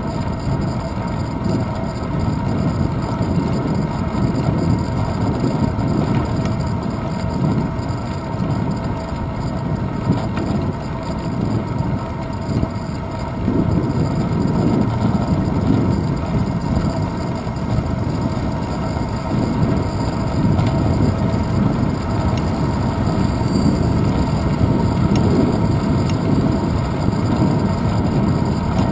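Wind buffeting and road rumble on a handlebar-mounted GoPro action camera on a moving bicycle: a steady low, fluttering rumble that grows a little louder about halfway through.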